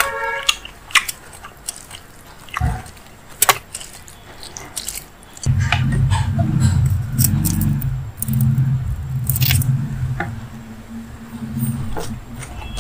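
Close-up eating sounds: wet clicks and smacks of fingers mixing rice with curry and of the mouth. From about five seconds in, a loud low rumble takes over and is the loudest sound.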